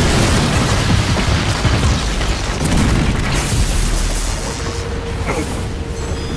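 Loud rumbling boom with crashing debris, an animated monster's destructive entrance, over music. A steady held tone comes in about four seconds in.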